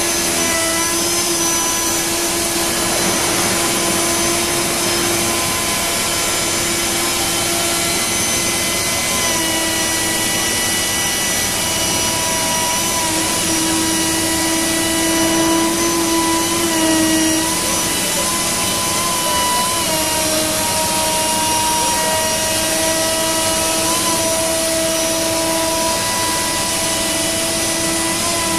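Router spindle on a Panasonic six-axis robot cutting plastic: a steady whine with several pitches that shift slightly up and down now and then, over a constant rushing noise.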